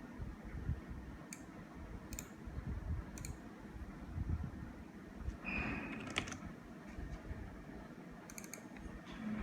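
Scattered computer keyboard and mouse clicks: about half a dozen sharp single clicks spaced a second or so apart, with a brief scraping noise a little past halfway, over a low background rumble.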